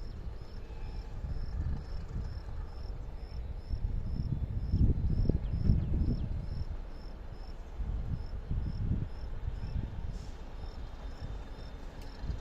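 Cricket chirping steadily, about two chirps a second, over a low irregular rumble that swells about four seconds in and fades again.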